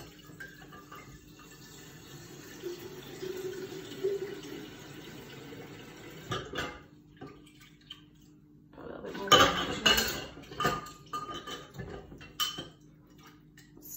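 Tap water running into a vase for about six seconds, then the tap shuts off. A few seconds later comes a loud clatter of items being handled at the sink, with a few more knocks near the end.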